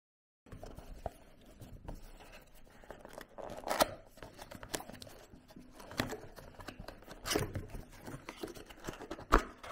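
Cardboard puzzle box being handled and opened, its tuck flap pulled out and the box pulled apart: irregular scrapes, rustles and small sharp clicks of card, starting after half a second of silence.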